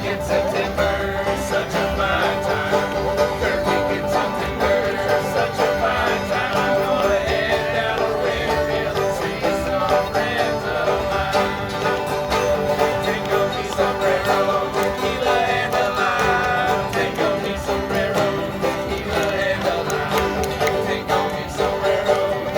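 Acoustic bluegrass band playing an instrumental break with no singing, busy plucked strings over a steady beat.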